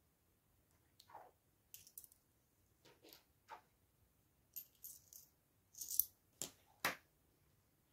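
Loose euro coins clinking as they are picked up and shifted about on a table: scattered small clicks and clinks, a few with a bright ring, coming faster in the second half.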